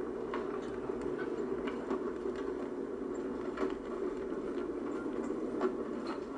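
Boat engine running with a steady drone, with scattered light clicks and ticks on top.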